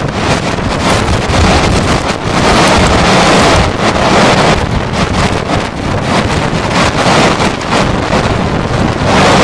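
Strong gusty wind buffeting the microphone at an open car window, a loud rushing noise that swells and drops in quick gusts.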